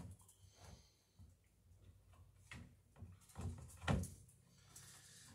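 A few light knocks and scrapes of hands shifting a long wooden plank on a wooden floor, the loudest knock about four seconds in.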